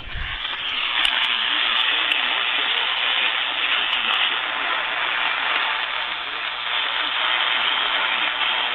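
Radio static: a steady hiss from a weakly received station, rising over the first second, with faint broadcast audio buried beneath it.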